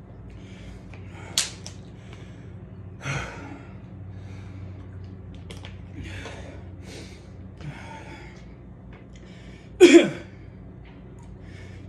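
A man breathing hard and gasping while recovering from burpees, in separate noisy breaths, with a loud voiced gasp near the end. A low steady hum runs underneath.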